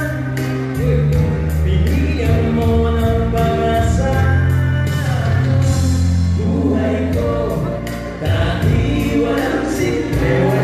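A group of three men singing live into handheld microphones, amplified through PA speakers in a large hall. They sing over accompaniment with a strong bass line and a steady beat.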